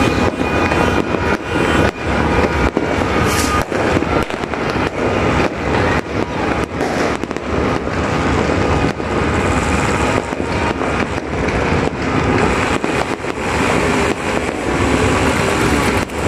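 Many fireworks going off at once: a continuous barrage of overlapping bangs and crackles, with no let-up.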